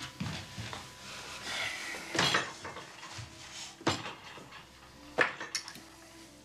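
Tableware on a set dinner table: plates, glasses and cutlery knocking and clinking in a few separate sharp clicks about two, four and five seconds in, with a soft rustle between them.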